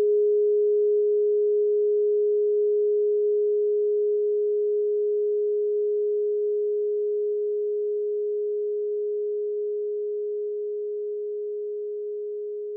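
A single steady pure tone, a solfeggio meditation tone, held at one pitch and fading slowly.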